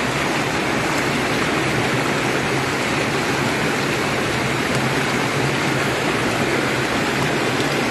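Steady rush of flowing water through a concrete channel, even and unbroken, with a steady low hum underneath.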